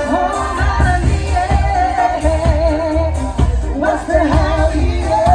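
Live street band playing an upbeat song with a singer over a heavy, pulsing bass beat.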